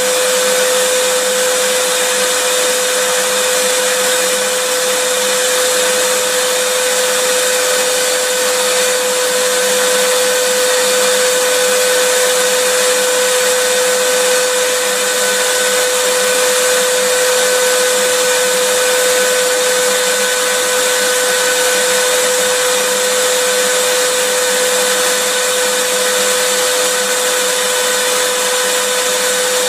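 Vacuum cleaner running continuously: a steady hiss of rushing air with a constant motor hum pitched fairly high, never changing in speed or loudness.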